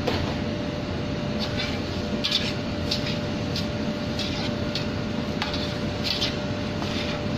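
Slotted metal spatula stirring raw rice into a curry sauce in a large stainless-steel stockpot, with short scrapes and knocks against the pot every second or so over a steady hum.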